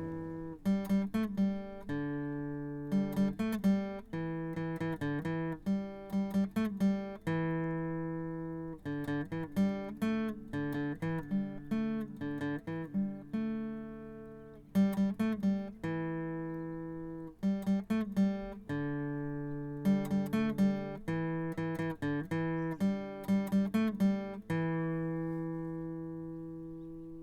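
Acoustic guitar music: plucked notes and chords in repeating phrases, each chord left to ring and fade.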